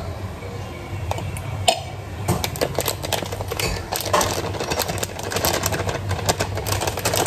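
A spoon clinking and scraping against a bowl while a plastic bag crinkles, as cornflour is spooned into mashed potato. The clicks and scrapes come at an irregular pace, over a steady low hum.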